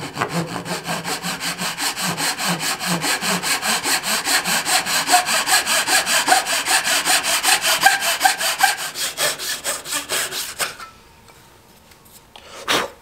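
A fine-toothed Zona razor saw, 24 teeth per inch, cutting a 45-degree miter through soft pine moulding in quick, even strokes, about four a second. The sawing stops a couple of seconds before the end, and a single short knock follows near the end.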